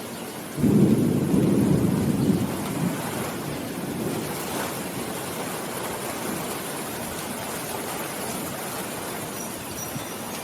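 Steady rain with a clap of thunder. The thunder breaks in suddenly about half a second in, is loudest for the next two seconds, and rolls away over the following couple of seconds while the rain goes on.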